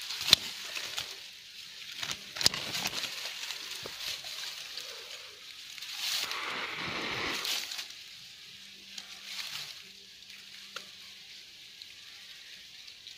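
Leaves and twigs rustling with a few sharp snaps, from branches being cut back by hand; a longer, louder spell of rustling comes past the middle.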